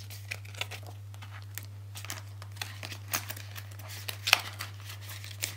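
Polymer banknotes and a plastic binder cash wallet being handled: soft rustling and small clicks, with one sharper click about four seconds in, over a low steady hum.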